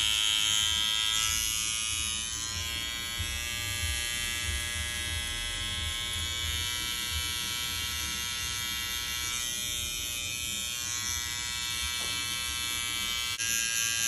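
Cordless T-blade hair trimmer running with a steady high-pitched buzz as it outlines the hairline around the ear.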